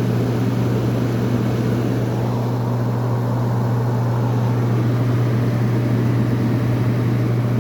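An air conditioner running: a steady, loud electrical hum from the compressor with the rush of the fan moving air, unchanging throughout.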